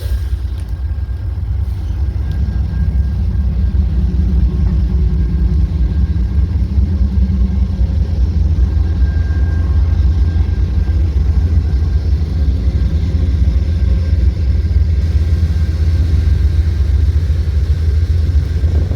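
Diesel train rumbling steadily and deeply, growing a little louder about two seconds in.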